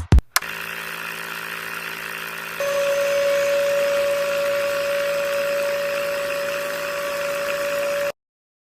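Small electric motor running steadily, with a higher steady whine joining and the sound growing louder about two and a half seconds in; it cuts off abruptly near the end.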